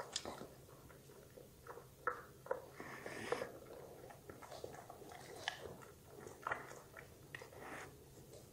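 A dog chewing and crunching pieces of raw vegetable, with irregular crisp crunches and clicks.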